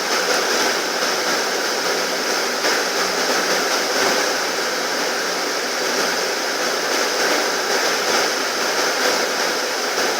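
Steady rushing noise, even and unbroken, with no clear rhythm or knocks.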